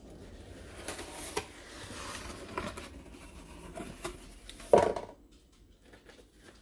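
A corrugated cardboard mailer box opened by hand: the lid scraping and flexing, with paper and cards rustling inside and a few small clicks. A louder single knock of the box comes about three-quarters of the way through.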